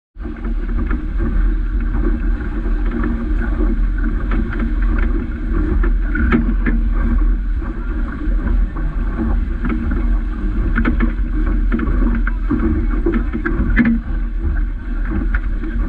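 Wind buffeting the microphone and water rushing past the hull of a Vaucluse Junior sailing dinghy moving fast on a reach, with frequent short slaps and knocks of spray against the boat.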